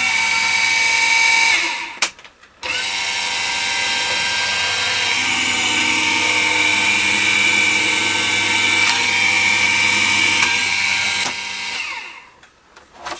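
Sizzix Vagabond electric die-cutting machine running, its motor drawing a die-and-plate sandwich through the rollers with a steady whine. It stops briefly about two seconds in, then runs steadily again and winds down near the end.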